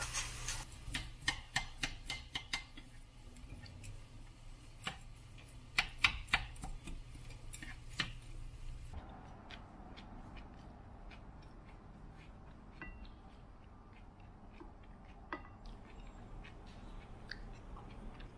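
Utensils clicking and tapping against cookware and dishes: a quick run of sharp clicks for the first eight seconds or so, then scattered lighter taps.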